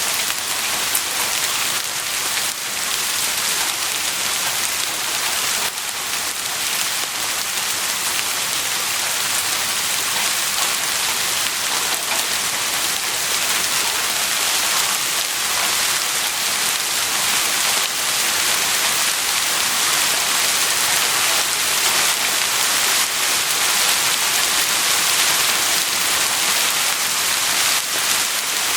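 Heavy rain falling steadily: a dense hiss of drops with scattered sharper drop hits, and no thunder.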